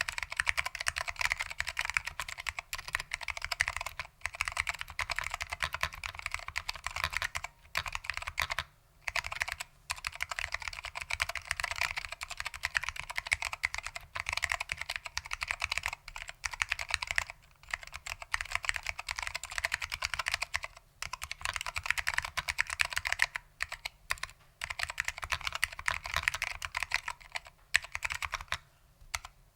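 Fast continuous typing on a mechanical keyboard with SKCM Orange Alps switches, foam-damped, with PBT and ABS keycaps: a dense run of key clicks broken by a few short pauses.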